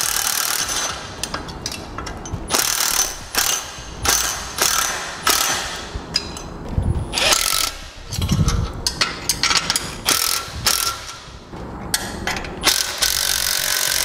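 Milwaukee Fuel cordless impact wrench with a 9/16 socket running nuts down onto bolts: about a dozen short bursts of rapid hammering with brief pauses between them, snugging the nylon lock nuts tight.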